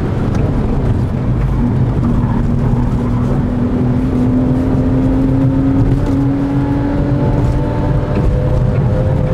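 Porsche 911 Carrera 4S (997) 3.8-litre flat-six engine pulling hard under acceleration, heard from inside the cabin. Its pitch rises steadily, dips briefly about six seconds in, then climbs again.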